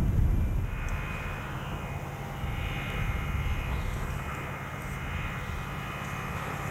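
Steam locomotives standing under steam: a steady hiss over a low hum. A louder low rumble fades away in the first second.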